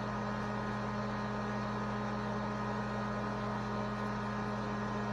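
Steady electrical hum, a low drone with a stack of fainter higher tones above it, unchanging in pitch and level.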